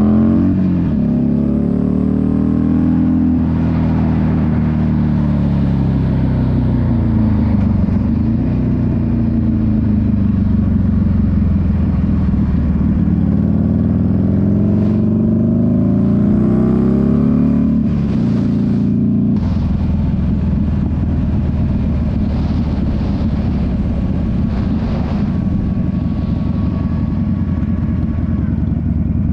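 Motorcycle engine accelerating hard, its note climbing and dropping repeatedly as it revs up and falls back, with wind rush at speed. About two-thirds of the way through the engine note fades into a steady, noisier rush.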